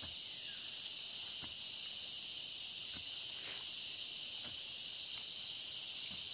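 Steady high-pitched chorus of forest insects droning without a break. Underneath it come a few faint dull knocks, roughly one every second or so, from a digging stick jabbed into the soil.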